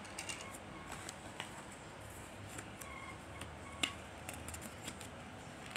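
Light handling noise: small scattered clicks and rustles of things being moved about, with one sharper click about four seconds in, over a low steady room hum.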